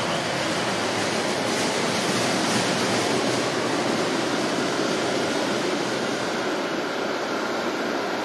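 Guadalajara light-rail train pulling out of an underground station and running off into the tunnel: a steady rushing noise of the train's wheels and motors, slightly louder about two to three seconds in.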